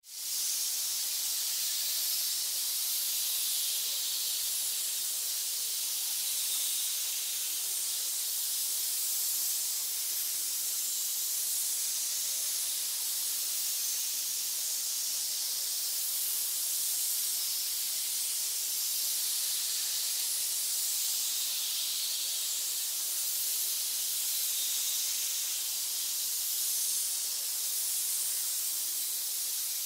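Many snakes hissing together, a steady high hiss with overlapping swells.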